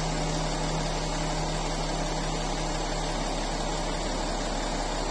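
A truck-mounted crane's diesel engine running steadily, with a strong low hum.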